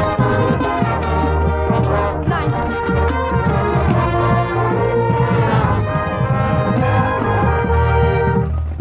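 Marching band brass section playing loudly in full chords, trumpets on top and lower brass underneath, with a brief break just before the end.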